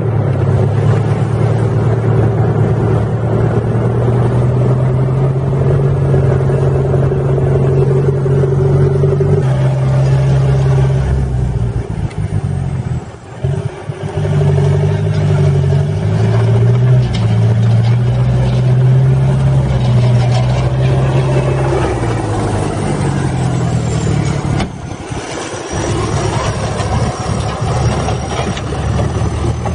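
Engine of a tracked amphibious all-terrain vehicle running steadily under load, with its pitch and level shifting a few times and dipping briefly about halfway through and again near the end.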